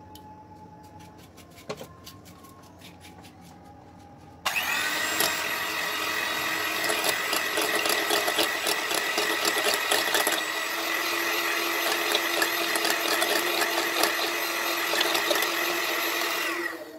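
A light knock, then an electric hand mixer switches on about four and a half seconds in. It runs at a steady speed with a whine, beating raw egg in a glass bowl, and winds down just before the end.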